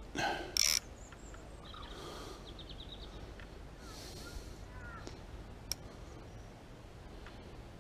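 Quiet outdoor ambience with a few faint bird calls: short chirps and a quick high trill. A brief scuff comes less than a second in, and a single sharp click near the middle.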